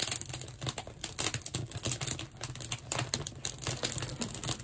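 Wood fire burning split oak sticks in a wood-fired salt-glaze kiln: dense, irregular crackling over a low steady rumble.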